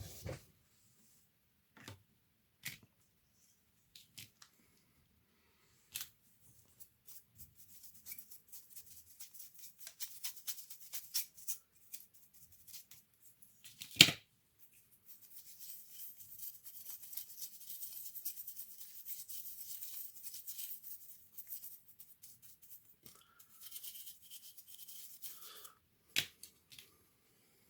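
Hand work on laptop parts: scattered small clicks and knocks, with long spells of fine scratchy rubbing or brushing and one sharp knock near the middle.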